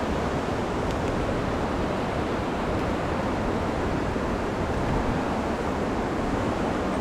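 Alpine river flowing, a steady rushing of water.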